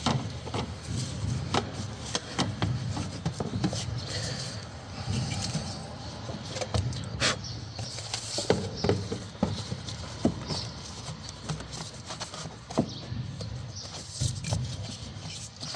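Scattered clicks, knocks and rustling of hands working a plastic air intake tube and its hose clamp onto a car's airbox, with one sharp click about seven seconds in.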